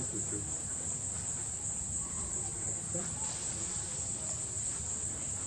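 Insects singing in a steady, unbroken high-pitched drone.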